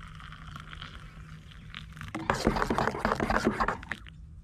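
Hot water poured from a stainless steel saucepan into a metal mug, a steady trickling hiss. About two seconds in, a metal spoon stirs the drink briskly, scraping and clinking against the mug's sides; this is louder and lasts about two seconds.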